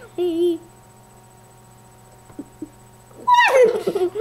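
A brief voice at the start, then a quiet pause with only a faint steady hum. About three seconds in, a young boy lets out a loud high squeal that falls in pitch and runs into laughter.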